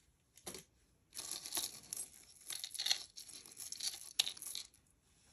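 Packaging being opened and handled to get at the next piece of jewelry: a brief rustle about half a second in, then irregular rustling from about a second in that stops shortly before the end.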